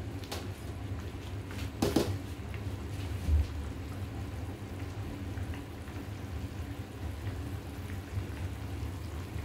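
Pot of chicken soup simmering on a gas burner, with a steady low rumble. In the first two seconds a metal spoon clinks against the stainless steel pot; the loudest knock comes about two seconds in, and there is a dull thump about a second later.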